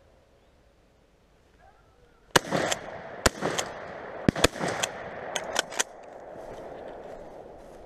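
Footsteps crunching through dry, frosted grass and leaves, starting about two seconds in, with a quick run of about ten sharp clicks and knocks from the gear and shotgun being handled.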